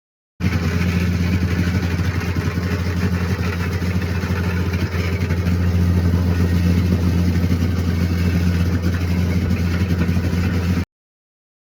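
Plate compactor running steadily, its engine and vibrating plate compacting hardcore of large stones. A loud, even drone that starts abruptly just after the beginning and cuts off abruptly near the end.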